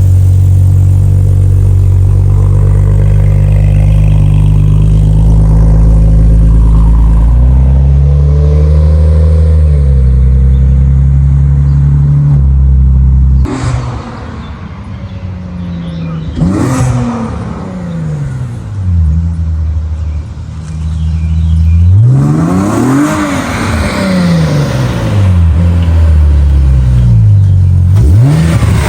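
Nissan 370Z's 3.7-litre V6 running loud, held at steady revs for the first half with a few shifts in pitch. It is then revved up and let fall back several times.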